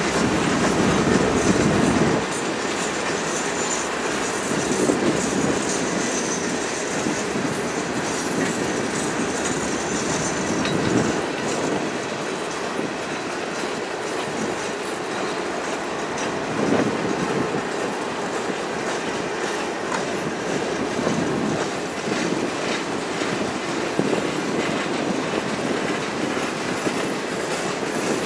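Freight train of loaded covered hopper cars rolling past, steel wheels running over the rails with a louder clatter every few seconds as trucks cross joints. A faint high wheel squeal comes in during the first third.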